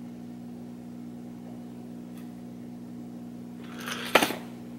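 Steady low hum, with a brief crinkle of a plastic clamshell lure package being handled near the end.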